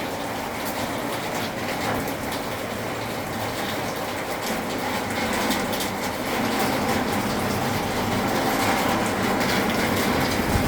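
Steady rain falling, a dense hiss with many small ticks of drops, growing slightly louder in the second half.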